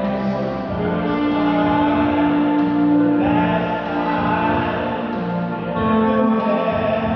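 Music with singing, sustained voices and held notes at a steady level, picked up by a phone's microphone in a large arena.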